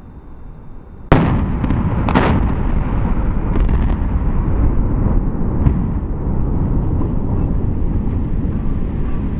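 Explosive demolition charges cutting a steel truss bridge: a sudden loud blast about a second in, then several more sharp reports over the next three seconds. A continuous loud rumble follows as the span drops into the creek.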